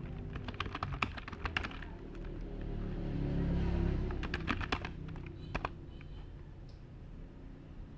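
Typing on a computer keyboard: a quick run of keystrokes near the start and a few more keys about halfway through, over a low background rumble that swells and fades in the middle.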